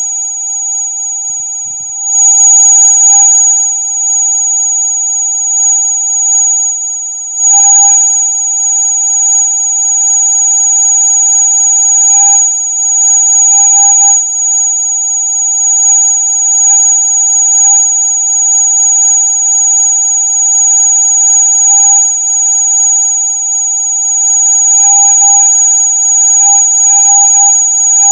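Electronic rat-repellent tone: a loud, steady, piercing sound of several pitches held at once, the strongest very high, with a few brief crackles along the way. It is played to drive rats away.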